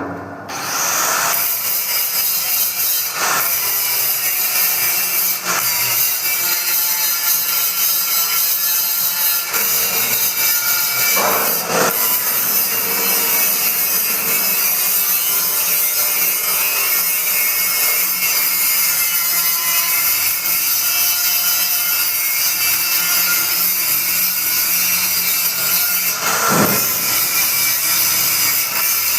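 Heavy blender's motor running steadily with a loud whir, with a few brief knocks.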